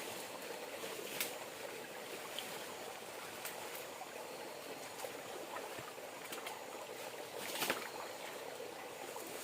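River water flowing and lapping steadily, with a sharp knock about a second in and a louder one near the end.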